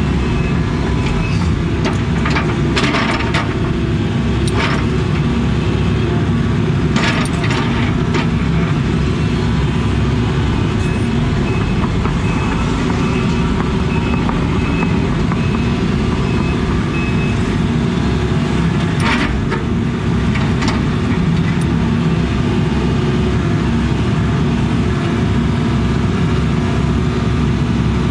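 Case CX80 excavator's diesel engine running steadily under hydraulic load while it works rock, with a few sharp knocks scattered through as the bucket and thumb handle the stones.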